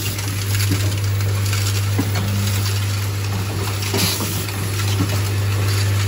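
Automatic plastic corner-connector screw assembly machine running: a steady low hum with irregular light clicks from its mechanisms, and a short hiss of air from a pneumatic cylinder about four seconds in.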